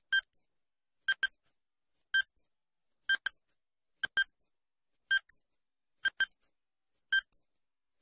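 Quiz countdown timer sound effect: short, high electronic beeps about once a second, some single and some in quick pairs, with silence between them.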